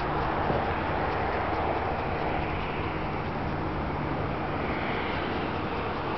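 Steady rumble of highway traffic.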